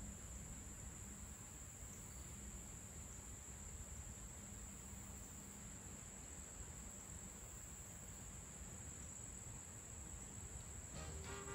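Faint, steady high-pitched chorus of insects such as crickets or cicadas in the streamside woods, with music starting just before the end.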